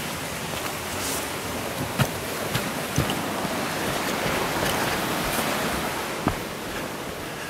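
Steady rushing of a small forest stream, swelling a little around the middle, with a few short thuds.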